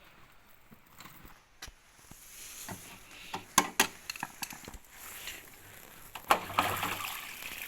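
Several sharp clicks and knocks, as of parts being handled. Near the end a steady rush of water begins to run.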